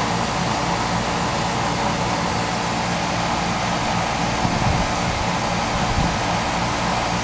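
Garden fountain running, water splashing in a steady rush with a faint low hum underneath, and two soft bumps later on.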